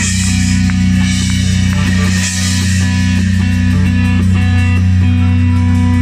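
Live rock band playing: electric guitar and bass guitar holding sustained low notes over drums, with cymbals ringing through the first half.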